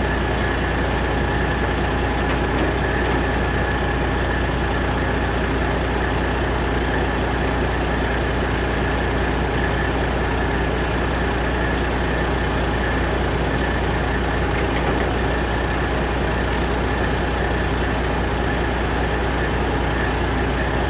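Semi truck's diesel engine running steadily with a constant low hum.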